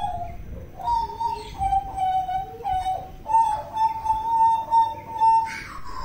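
Hooded butcherbird singing: a run of clear, fluting whistled notes at nearly one pitch, a few short ones with small glides between them, then one long held note of about two seconds.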